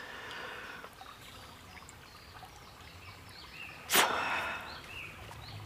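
Breath blown hard into a Sawyer Mini hollow-fibre water filter to force air and water back out through its 0.1-micron pores, with a sudden rush of air and water about four seconds in. A stream babbles and small birds chirp behind.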